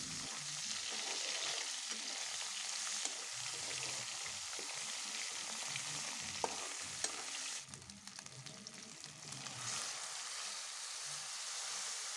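Sliced onions and ginger-garlic paste sizzling in hot oil in a metal pan, being sautéed until the raw smell of the paste cooks off, with a spatula stirring and tapping now and then. The sizzle eases for about two seconds just past the middle, then picks up again.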